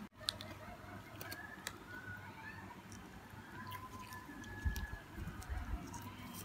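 Gloved hands breaking open a waffle-wafer ice cream sandwich: faint scattered crackles and clicks of the wafer, with a few soft handling thumps near the end.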